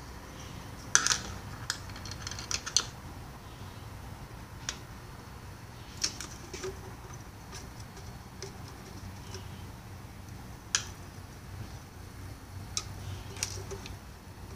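Scattered light clicks and taps of hands handling plastic parts: a fuel line being worked into the plastic fuel tank of a Ryobi CS26 string trimmer. There is a cluster of clicks about a second in, with single sharper ones later on, over a faint steady low hum.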